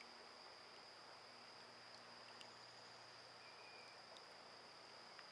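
Near silence: a faint, steady, high-pitched whine over background hiss, with a few faint ticks.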